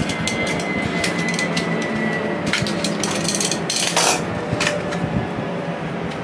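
Cardboard box packaging and a paper insert being handled: rustling and scraping with light knocks and clicks, over a steady low hum.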